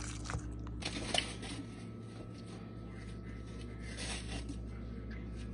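Faint scraping and rustling of a spoon working through tuna pasta salad as it is served and eaten, with a few light clicks.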